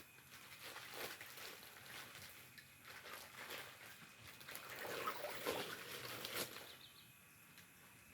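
Faint water trickling and splashing as a plastic bag of tilapia fry is tipped and emptied into a fish tank, a little busier about five seconds in.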